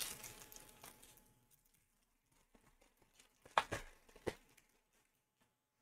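Foil trading-card pack wrapper being torn open by hand: faint crinkling, then a few short sharp crackles of the foil between about three and a half and four and a half seconds in.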